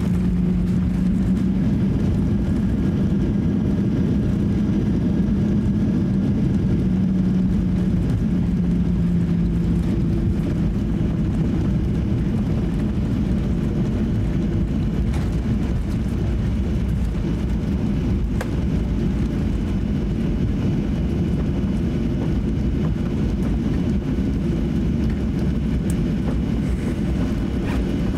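Cabin noise inside a Boeing 737-800 taxiing after landing: a steady engine and air rumble, with a low hum that fades about ten seconds in and a few faint clicks.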